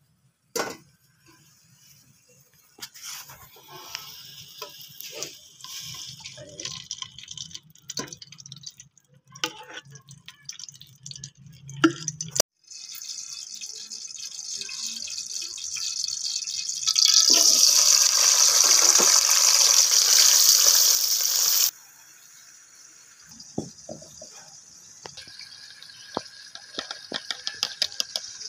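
Food frying in hot oil in an aluminium pot on a gas stove, a steady sizzle that builds and is loud for several seconds past the middle, then cuts off suddenly. Before it come scattered clinks and knocks of a steel ladle and utensils.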